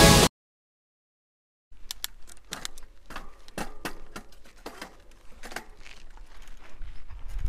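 Music cuts off just after the start, and after about a second and a half of silence a bicycle is heard rattling over a rough dirt track: irregular sharp knocks and clicks over a low rumble.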